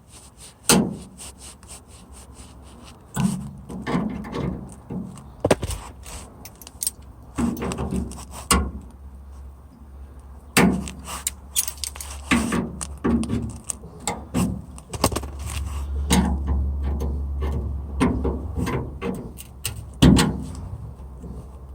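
Cut-out section of sheet-metal quarter panel being wiggled back and forth by hand to break its spot welds: irregular metallic clanks, rattles and scrapes with the odd creak, starting and stopping in short bouts.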